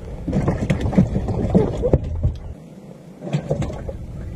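Fishing gear being handled in a small boat: a string of clicks, knocks and clatters, mixed with indistinct low voices.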